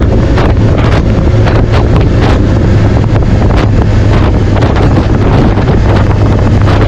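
Heavy wind buffeting the microphone in uneven gusts over a steady low drone.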